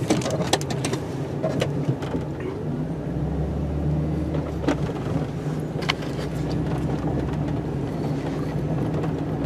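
Snow-plow truck's engine running steadily, with a low hum that swells for a couple of seconds about three seconds in. Scattered clicks and knocks sound over it.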